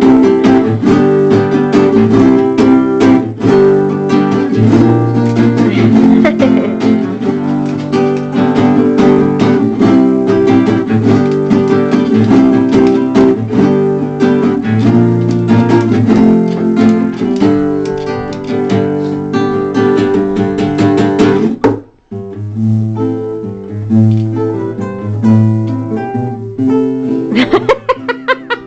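An acoustic guitar plays an instrumental passage, strummed and plucked, with no singing. It breaks off for a moment about two-thirds of the way through. It then goes on more softly, with rapid strumming near the end.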